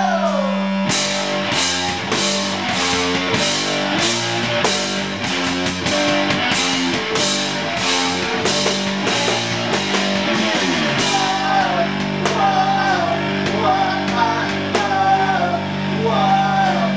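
Live rock duo playing: distorted electric guitar, drum kit and a woman's singing. The drums come in with a steady driving beat about a second in and ease off around two-thirds of the way through, leaving the held guitar note and a wavering melody on top.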